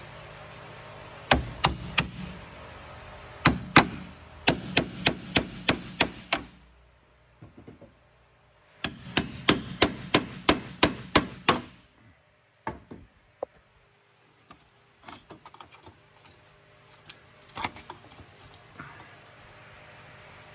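A hammer striking the end of a heavy bent scraper, driving it between a steel headlight header bar and the fiberglass bonding strip to shear the rivets. The blows come in quick runs of several strikes, about three to four a second, with pauses between runs. In the second half they thin out to lighter, scattered taps.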